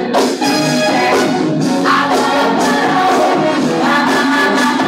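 Funk record with singing, played loud.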